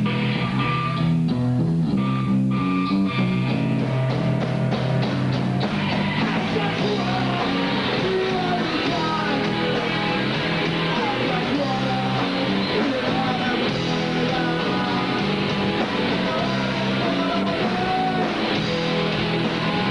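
A rock band playing live: electric guitar, bass and drums, with singing. It opens with a choppy stop-start riff and settles into a fuller, continuous passage about six seconds in.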